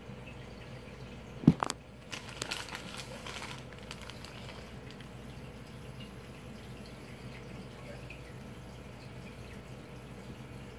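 Aquarium water trickling steadily over a low hum. About a second and a half in there is one sharp knock, followed by a couple of seconds of light clicking and rustling.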